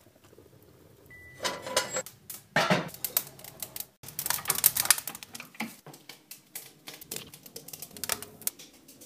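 Newly lit fire of paper and wood crackling in a wood stove, with rapid, irregular snaps and pops.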